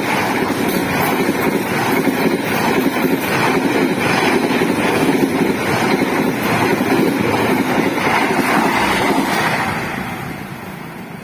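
A train passing close by: a loud, steady rumble and rush of rolling wheels and moving air with faint repeated clacks, which fades away near the end.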